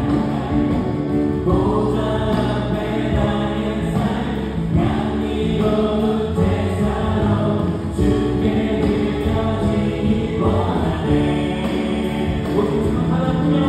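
Contemporary worship band playing a gospel song with a group of voices singing together. The accompaniment is keyboard, electric guitar, bass guitar and drums.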